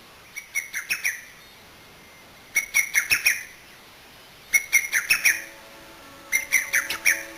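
A bird calling in short bursts of four or five quick, high chirps, repeated about every two seconds. Soft music with held notes comes in near the end.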